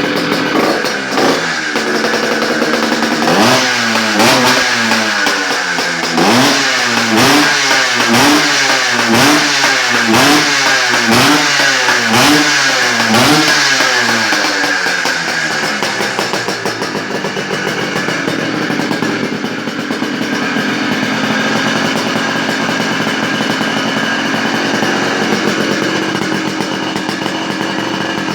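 180 cc two-stroke motorcycle engine being revved: the throttle is blipped over and over, about once a second for some ten seconds, each rev climbing and dropping back. The engine then settles into steady running.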